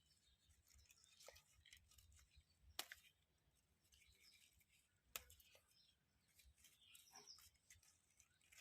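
Mint (pudina) stems being harvested by hand: faint, sparse sharp snaps a second or more apart, with faint high chirps in the background.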